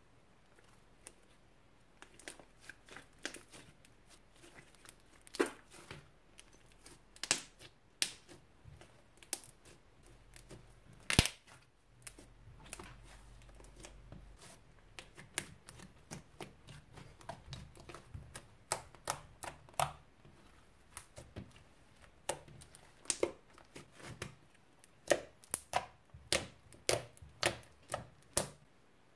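Thick homemade slime being kneaded, stretched and poked by hand, giving irregular sharp clicks and pops of trapped air, with the pops coming faster near the end.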